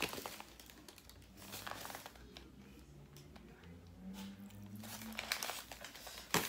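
Paper sandwich wrapper bag crinkling and crumpling in the hands in irregular bursts, loudest at the start and again just before the end.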